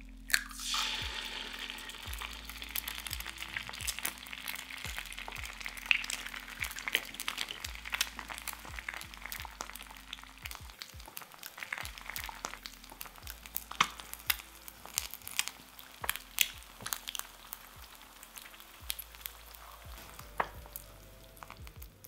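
An egg is cracked open and dropped into a hot, oiled nonstick frying pan. It hits with a loud sizzle that slowly eases into steady frying, crackling and popping as the oil spits around the setting egg.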